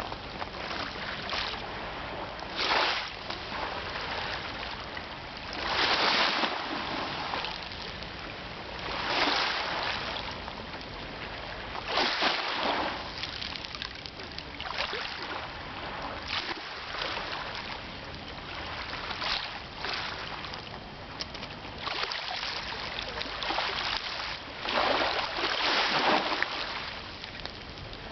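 Sea waves breaking and washing on the shore in repeated rushing surges every few seconds, the loudest near the end.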